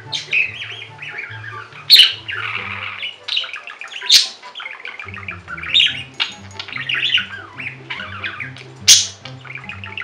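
Budgie chattering and warbling, with four loud, sharp chirps spread through it, over background music with a bouncing bass line.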